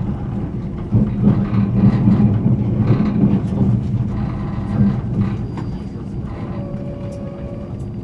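Running sound heard inside a 485-series electric limited express train: a steady low rumble of wheels and traction motors with scattered clicks from the track. A thin, steady, high squealing tone sets in about six and a half seconds in, as the train nears a station stop.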